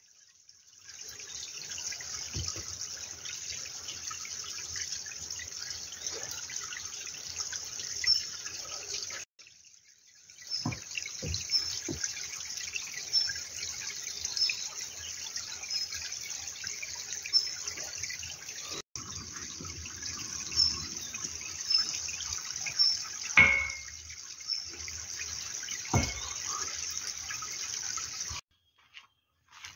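Small mountain stream trickling and babbling over rocks, a steady rushing hiss. It drops out briefly twice, and a few dull knocks come through, the loudest about three quarters of the way in.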